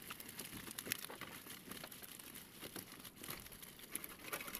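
Fish being shaken out of a wet fish-trap net onto a pile of fish in a boat's hull: a dense, irregular rustling of netting with many small wet clicks and slaps as the fish drop and flap.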